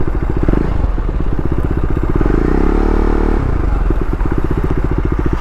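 KTM Duke 390's single-cylinder engine running with a fast, even firing beat. About two seconds in a tone rises in pitch and falls back for about a second.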